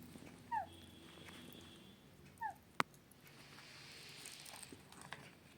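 A pet parrot gives two short, falling chirps about two seconds apart, with a single sharp click just after the second. The click is the loudest sound.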